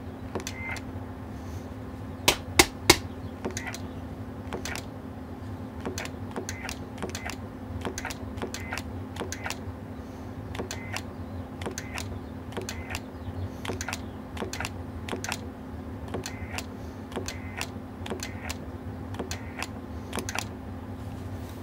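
Repeated sharp clicks of a CB amplifier's keying relay as the microphone is keyed and unkeyed on and off, three loud clicks close together about two seconds in, then a run of lighter, irregular clicks. A steady low hum runs underneath.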